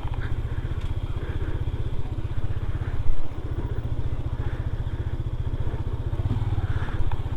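Motorcycle engine running at low speed, a steady rapid pulsing beat, with a brief louder rise about three seconds in.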